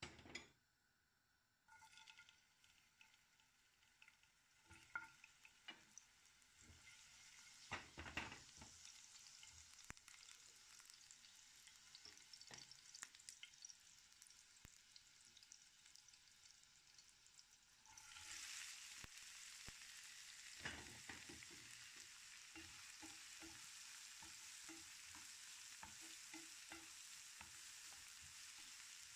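Faint sizzle of chopped onion frying in oil in a nonstick pan, with a wooden spatula knocking and scraping against the pan. The sizzle steps up about two-thirds of the way through and stays louder, as more onion hits the hot oil.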